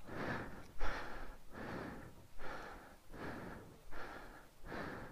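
Quick, heavy breathing close to the microphone, about seven breaths in five seconds.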